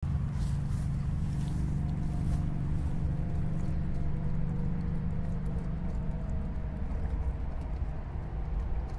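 Steady low engine rumble, with a few fainter tones above it that slowly drift in pitch.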